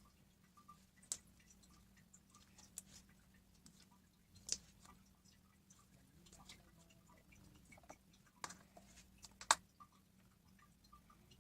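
Slime being squeezed and poked by hand, giving scattered small clicks and pops at an uneven pace, with a few sharper snaps, the loudest about two seconds before the end.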